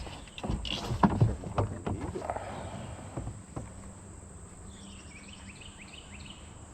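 A run of knocks and clatter for about three seconds, as from gear or a paddle against a kayak hull. Later, a bird gives a quick series of short falling chirps over a steady high insect drone.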